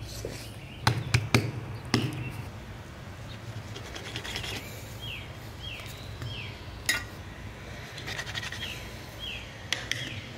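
A spoon knocks against a mixing bowl a few times while stirring biscuit dough, then a bird calls in the background, repeating a short falling chirp about twice a second in two runs.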